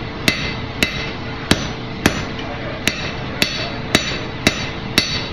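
Hand hammer striking red-hot 5/8-inch square steel bar on the anvil edge: about nine steady blows, roughly two a second, each a sharp clang with a short ring. These are half-on, half-off blows setting in the shoulder of a tong jaw, to half the bar's depth.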